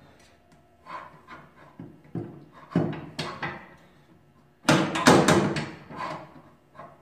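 Metal clanking and knocking as a shaft collar is worked onto a rod under a rack fitting: a few scattered knocks, then a loud cluster of clanks about five seconds in.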